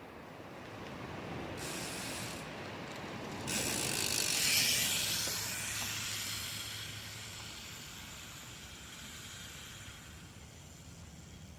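Trailmech rear hub's freehub buzzing as the bicycle coasts, a rapid clicking of the ratchet. It comes in about a second and a half in, breaks off briefly, returns loudest about four to five seconds in, then slowly fades, over a low rumble of riding noise.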